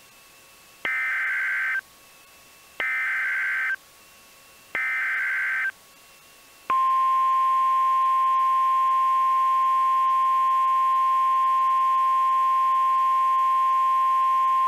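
NOAA Weather Radio emergency alert: three one-second bursts of buzzy digital SAME header data about a second apart, then the steady, high 1050 Hz warning alarm tone for about eight seconds, announcing a tornado warning.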